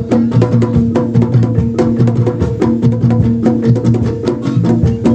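Traditional East Javanese bantengan percussion music: fast, busy drum strikes and heavy low beats over steady ringing pitched tones.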